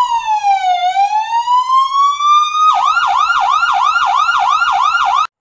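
Electronic ambulance siren: a slow wail that falls and then rises in pitch, switching about halfway through to a fast yelp of about four sweeps a second, then cutting off suddenly just before the end.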